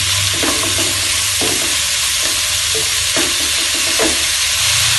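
Sliced button mushrooms and garlic sizzling in oil in a nonstick wok, with a wooden spatula scraping and tossing them in repeated strokes as they are sautéed until slightly wilted.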